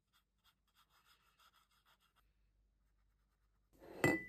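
Faint soft strokes of a paintbrush on sketchbook paper for about two seconds, then near the end a ceramic paint palette set down on a wooden table with a sharp knock and a brief ringing clink.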